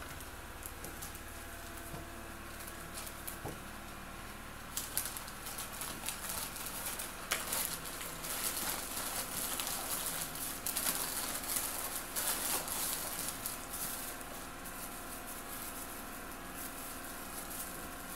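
Gift wrapping paper and tissue paper rustling and crinkling as a present is unwrapped. Irregular crackling handling noise starts about five seconds in and goes on to the end.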